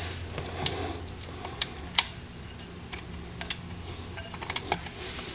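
Scattered light metallic clicks and ticks as a wrench, nuts and lock washers are handled on the rear sprocket bolts of a dirt bike, irregular rather than a steady ratchet rhythm, with a small flurry of ticks near the end. A low steady hum runs underneath.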